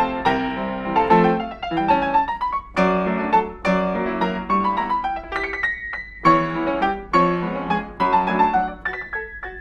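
Solo piano playing a melody over chords in quick successive notes, with a brief pause about six seconds in.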